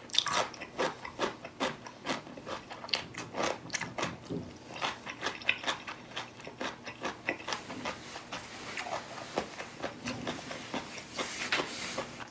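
Close-miked eating sounds: chewing and crunching in quick short clicks, several a second.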